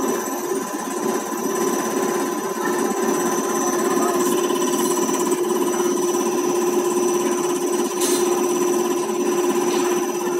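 Common rail injector test bench running a Bosch injector at 160 MPa rail pressure with its pump at 800 rpm. The injector fires in a fast, even clatter over the steady whine of the bench's drive and high-pressure pump.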